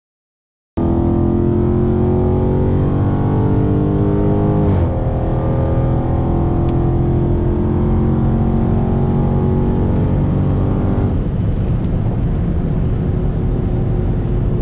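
Dodge Charger 392's 6.4-litre HEMI V8 with a loud exhaust, pulling hard at highway speed, cutting in suddenly about a second in. The pitch drops quickly in an upshift about five seconds in, then climbs again as the car accelerates. Near the end it comes off the throttle and the engine note sinks into steady road and wind noise.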